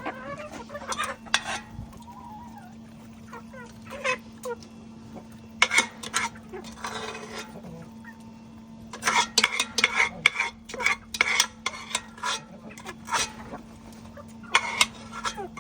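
Domestic chickens with soft clucks and many sharp taps, the taps coming thickest in a quick run through the middle and latter part.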